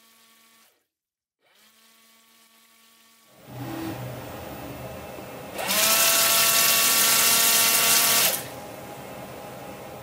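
Car windshield washer pump spinning up with a short rising whine, then running steadily while water hisses out of the washer nozzle for about three seconds, and cutting off. A quieter machine noise runs before and after it.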